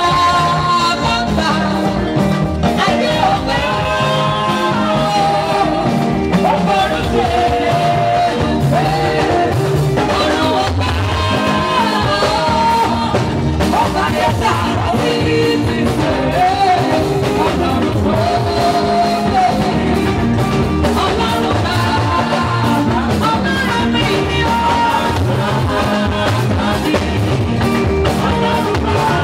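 Live gospel praise music: a woman singing lead with a group of singers over a band with a drum kit and a steady beat.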